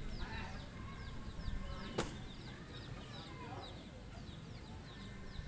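A bird chirping over and over, short high falling chirps about three a second, under a low rumble. One sharp knock about two seconds in.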